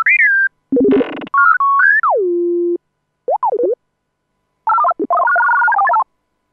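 Synthesized robot chirps and beeps: several short electronic phrases whose pitch glides up and down, warbles and steps between notes, with a brief buzzy burst about a second in and silent gaps between the phrases.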